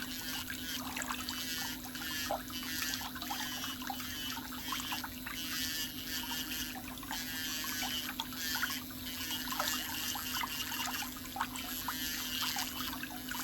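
Toenail work with manicure tools: irregular small clicks and scratchy scraping over a steady low hum.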